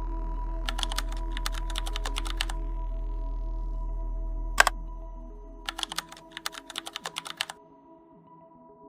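Two quick runs of keyboard typing clicks, each lasting about two seconds, with a single louder key click between them about halfway through. Soft background music plays underneath, and a low hum in it fades out in the second half.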